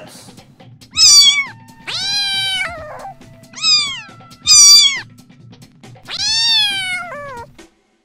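Domestic cat meowing five times, each meow rising and then falling in pitch. The first and fourth meows are the loudest, and the last is long with a short trailing mew.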